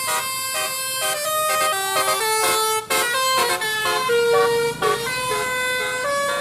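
Indonesian bus 'telolet' musical air horn playing a tune: a quick run of horn notes stepping up and down in pitch, some short and a few held longer.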